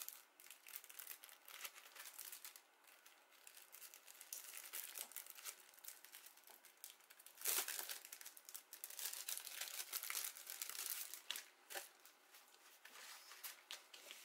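Clear plastic packaging sleeve crinkling and rustling as precut cardstock pieces are handled and slid out of it: faint, irregular crackles, with a louder crackle about halfway through.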